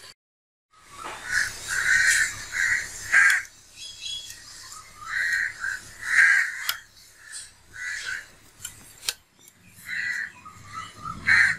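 Crows cawing, a string of short, loud caws repeated every second or two, starting about a second in.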